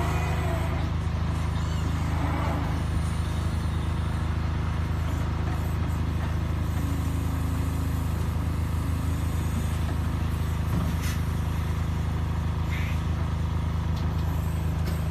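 SOCMA 1.8 t battery-electric wheel loader working a sand pile: a steady low hum from its electric drive and hydraulic pump, with a few faint knocks in the second half.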